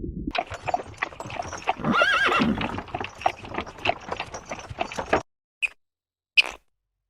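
A horse whinnying once, its pitch quavering up and down, over a run of clip-clopping hooves and clicks. This stops abruptly, and two brief sharp sounds follow near the end.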